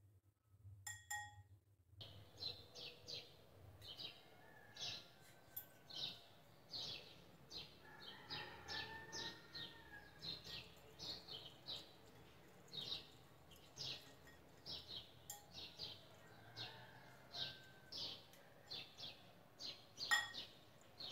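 Metal whisk stirring a thick spice-and-yogurt paste in a glass bowl, with short scraping strokes about two a second. A brief ringing clink on the glass comes about a second in.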